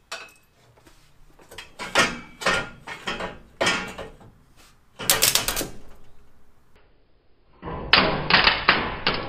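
Ratchet wrench clicking in short runs and metal tools knocking against exhaust header bolts on a Chevy 350 small block, with a louder, denser run of knocks near the end.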